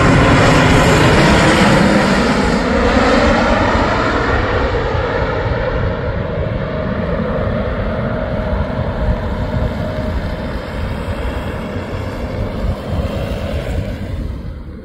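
Twin rear-engined business jet on landing approach with its gear down, passing low overhead. The jet-engine noise sweeps as it goes over, then fades steadily and grows duller as the jet flies away.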